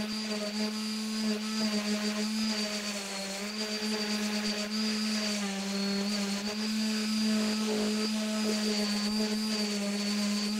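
Electric motor of a workshop power tool running steadily, a constant hum whose pitch dips slightly now and then as load comes on.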